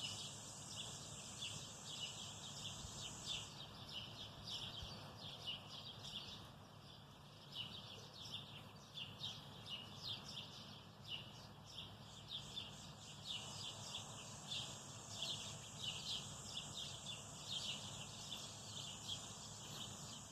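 Birdsong: many birds chirping with quick, short notes that overlap without pause. Under them runs a steady high hiss that stops a few seconds in and comes back about halfway through.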